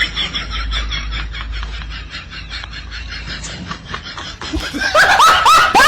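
A person laughing in quick, high-pitched bursts. The laughter fades over the first couple of seconds and breaks out again loudly near the end.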